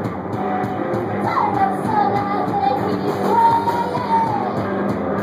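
Live punk-blues rock band playing loudly: electric guitar and drums under a sung vocal line, with notes that slide down and one long held note in the middle.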